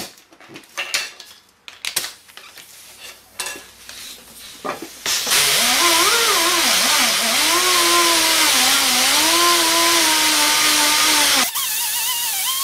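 Small pneumatic die grinder with a flap wheel polishing rust and corrosion out of the bore of an aluminum casting. It starts about five seconds in, after a few clicks and knocks of handling, as a loud hiss of exhausting air with a whine that wavers and dips as the wheel loads against the bore. Near the end it gets quieter and the whine rises in pitch.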